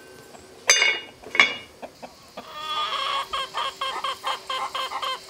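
The lid of an enamelled cast-iron casserole clinks down onto the pot twice in the first second and a half. Then a hen clucks rapidly and evenly, about four clucks a second.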